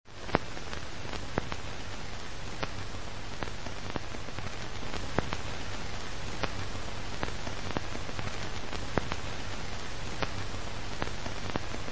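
A steady rain-like hiss with a low hum under it, dotted with sharp crackling clicks at irregular intervals of about a second, the loudest click just after it begins.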